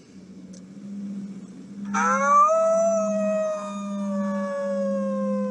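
A single long howl starts about two seconds in, rising briefly and then slowly sinking in pitch, over a steady low hum.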